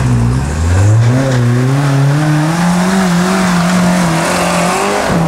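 Off-road 4x4's engine revving up hard and held at high revs as it climbs a muddy slope, its pitch wavering as the wheels spin and throw mud.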